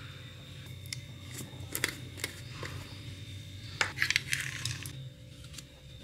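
Small sharp clicks and taps, a few spread out in the first couple of seconds and a denser cluster about four seconds in, from a jar of Biscoff spread being opened and a metal spoon knocking and scraping inside it.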